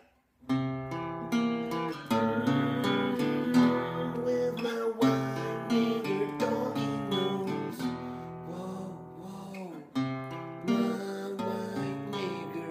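Acoustic guitar strummed in a chord pattern. It starts about half a second in after a brief gap, and each strum rings on.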